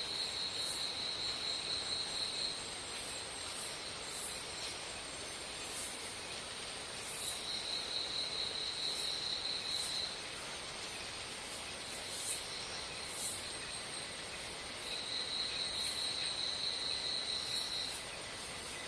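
Insects chirping: a high, rapid pulsing trill about three seconds long that comes back three times, with fainter trills between and short high chirps over a steady hiss.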